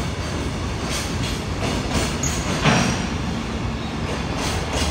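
Freight train passing close by, its empty container flatcars and then hopper wagons rolling over the rail joints with a steady clickety-clack and rumble. A louder clatter comes a little over halfway through.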